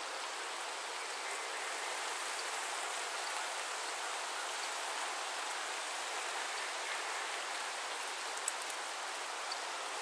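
Steady rain falling on a lake, an even hiss of drops on water, with one sharper drop or tap standing out about eight and a half seconds in.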